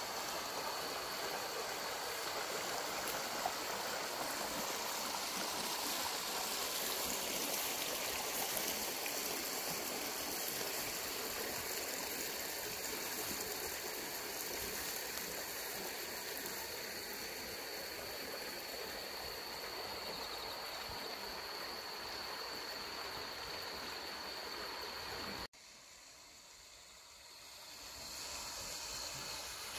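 Muddy canal water running high after heavy rain, a steady rush of flowing water with a thin steady high tone over it. It cuts off suddenly about 25 seconds in, leaving a fainter hiss.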